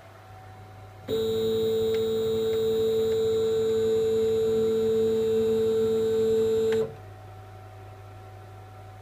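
CNC machine's stepper motors driving an axis at constant speed, giving a steady pitched whine that starts abruptly about a second in and stops abruptly near seven seconds. A low electrical hum runs underneath throughout.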